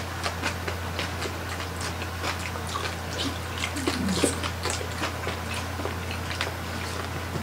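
Close-miked chewing and lip-smacking of several people eating soft roast pork with their hands: many small wet mouth clicks and smacks, with a brief hummed "mm" about four seconds in, over a steady low electrical hum.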